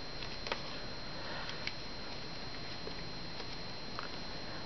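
A few faint clicks and small rustles of the thin insulated wires of a twisted-pair network cable being straightened by hand, over a steady hiss.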